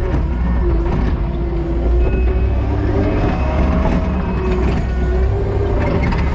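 Kubota SVL90-2 track loader's four-cylinder turbo diesel running steadily under work, a constant low drone with a wavering whine over it that rises briefly about halfway through.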